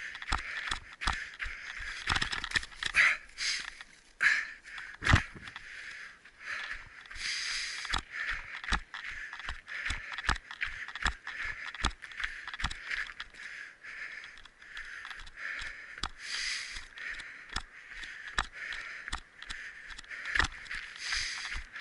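Rhythmic footsteps of a person running, about two to three strides a second, over a steady hiss.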